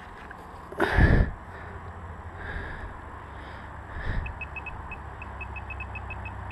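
A spade driven into the soil with a heavy thump about a second in, then a metal detector beeping in short high chirps from about four seconds in as it passes over the buried target.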